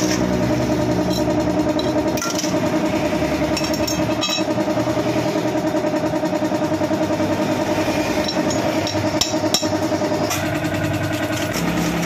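A motor running steadily with a fast, even pulse, with a few light metal clinks as clutch parts are handled on a tile floor.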